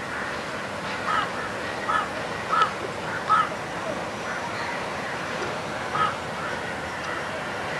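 A crow cawing repeatedly, with about five short harsh caws, four in quick succession and one more about six seconds in, over a steady background hum.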